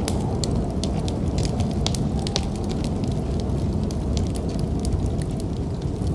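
Wood fire crackling, with many sharp pops and snaps, over a steady low rumble of snowstorm wind.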